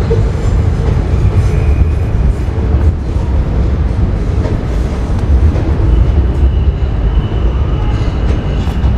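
Loud, steady low rumble with a thin high whine that comes in about six seconds in.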